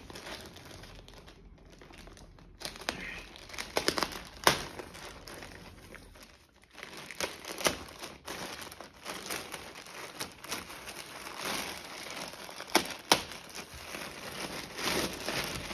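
Plastic courier mailer bags crinkling and rustling as they are handled and torn open, with irregular sharp crackles of the plastic throughout.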